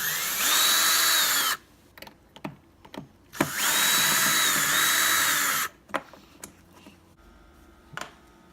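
Power drill running twice, once for about a second and a half and again for about two seconds, each time spinning up to a steady whine, as screws of the old lock striker are backed out. Small clicks and knocks of handling come between the runs and after.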